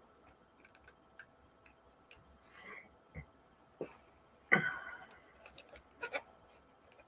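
Scattered small clicks, taps and rustles of eyeglasses and their cases and packaging being handled, with one louder clatter about four and a half seconds in.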